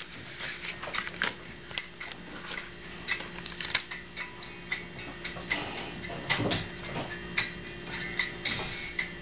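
A small metal keychain, a split ring and short chain with a cast metal emblem, clicking and clinking irregularly as it is handled and taken out of its packaging.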